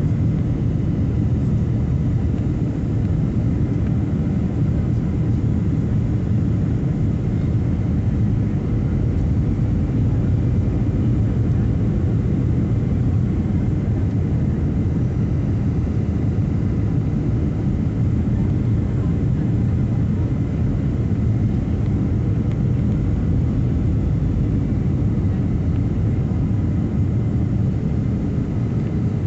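Boeing 757-300 cabin noise on final approach: a steady low rumble of the engines and airflow, with faint steady tones above it.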